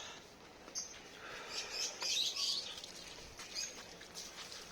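Small birds chirping in short, scattered calls, loudest about two seconds in.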